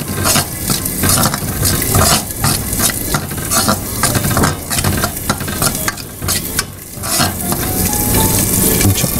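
Spatula stirring and scraping dry-roasted gram flour around a brass kadai on the stove, a continuous run of irregular scrapes against the pan.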